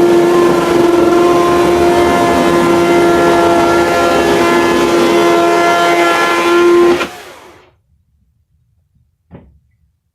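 Makita UC3541A 1800 W electric chainsaw running at full speed with a steady high whine, then switched off about seven seconds in and spinning down quickly. A single faint knock follows a couple of seconds later.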